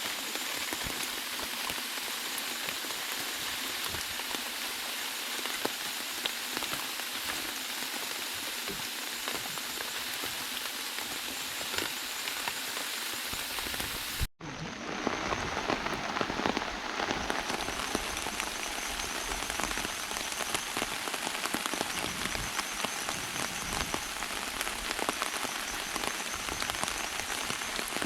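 Steady rain falling, with many individual drops ticking. It breaks off for an instant about halfway through, then goes on with a little more low rumble.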